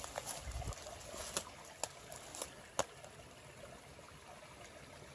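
Small creek trickling faintly. A few sharp clicks come in the first three seconds.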